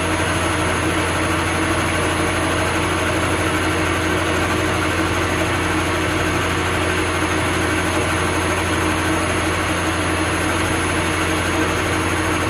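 Metal lathe under automatic Arduino-based CNC control, running steadily as its tool takes a light turning cut along a spinning metal bar.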